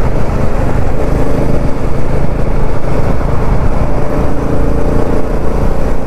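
Motorcycle engine running steadily at cruising speed, heard from the rider's seat, under a continuous rush of wind and road noise on the helmet-mounted microphone.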